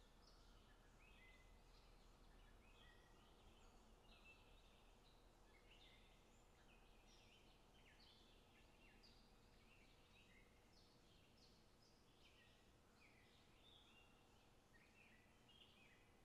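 Very faint birdsong: many short chirps and whistles, one after another, over near silence.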